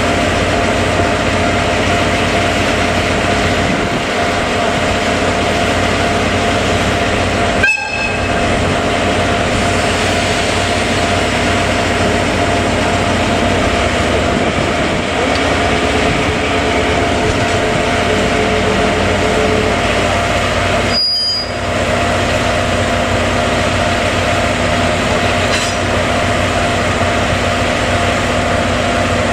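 DE10 diesel-hydraulic locomotive's V12 diesel engine running steadily while shunting coaches, with a steady hum; the sound drops out briefly twice.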